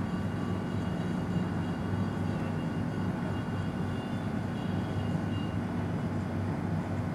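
Steady low mechanical hum with a faint hiss: the room's background noise while nobody speaks.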